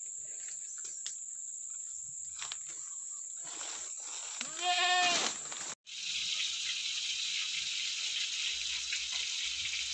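A goat bleats once, a single wavering call lasting under a second about halfway through, over a steady high-pitched tone. After a sudden break the rest is an even hiss.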